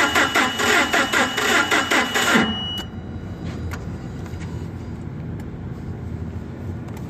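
Nissan K21 four-cylinder engine cranking over on the starter without firing, with its fuel injector disconnected, in a quick even rhythm of pulses. The cranking stops abruptly about two and a half seconds in, leaving a low steady hum. The test this cranking serves shows no compression in cylinder 2.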